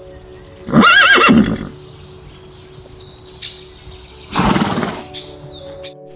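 Horse whinnying once, a loud call of about a second with a wavering pitch, followed a few seconds later by a shorter, breathy sound.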